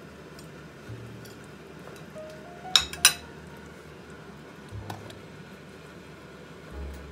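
Two sharp clinks of cookware, about a third of a second apart, as the pot of simmering pork is handled.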